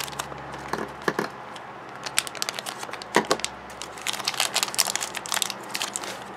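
Small red plastic wrapper crinkling in the hands as it is unwrapped, with irregular crackles throughout.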